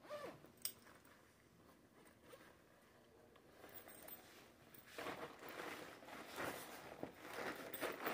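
A backpack being rummaged through by hand: fabric rustling and zipper sounds, with a sharp click in the first second and much busier rustling from about five seconds in.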